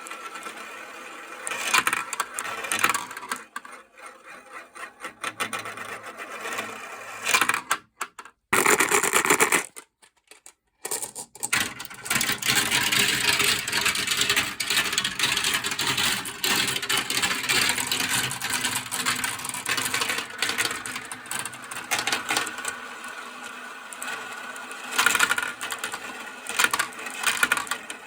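Many glass marbles rolling and clattering down a plastic marble-run track, a dense rattle of small clicks that drops out briefly twice near the middle.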